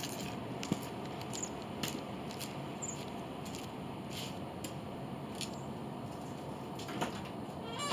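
Quiet room tone with scattered light clicks and taps, as of someone moving about and handling the car; the engine is not yet running.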